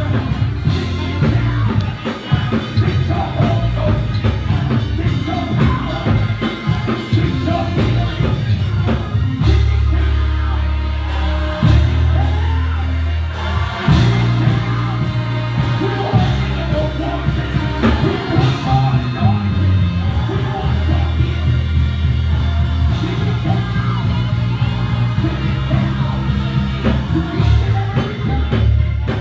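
Live church worship music: a band with deep, sustained bass notes under singing voices, with shouts and whoops from the congregation.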